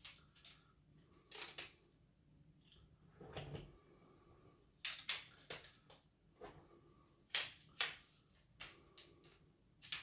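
Scattered light clicks and knocks of a folding camping cot's shock-corded leg sections and plastic joints being handled, about a dozen separate taps.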